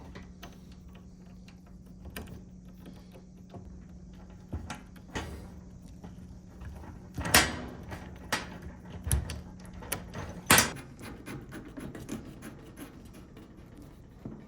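Scattered knocks, clicks and clunks of hands handling parts during a washing-machine hookup, with the two loudest knocks about seven and ten and a half seconds in, over a faint steady hum.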